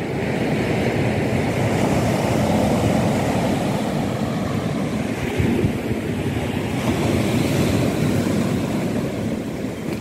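Waves breaking along the beach, with wind buffeting the microphone: a steady rushing noise that swells and eases.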